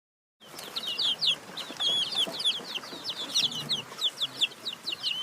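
A group of small birds chirping, a rapid stream of short, high-pitched notes overlapping each other, starting abruptly about half a second in.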